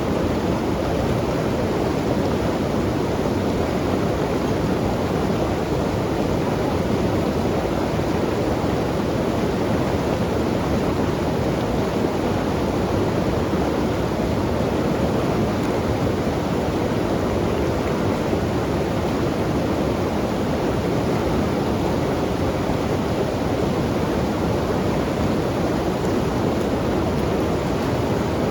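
A fast mountain river rushing, a loud, steady wash of moving water that does not let up.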